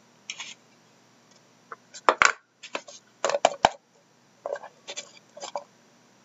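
Hands opening a small lidded trading-card box and sliding out the card stack: a string of sharp clicks, taps and scrapes, the sharpest bunched about two to three and a half seconds in.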